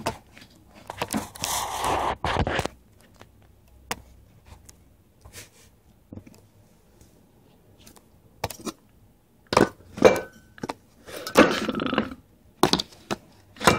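Scattered thumps and knocks with short bursts of rustling, ending in handling noise as the camera is picked up and moved.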